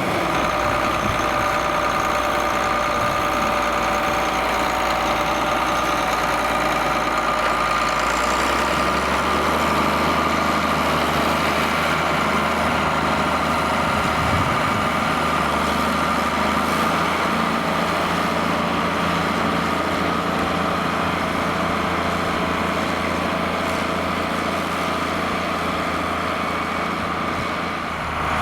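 John Deere 4850 tractor's six-cylinder diesel engine running steadily under load, pulling a six-furrow plough. The low drone shifts about a third of the way in.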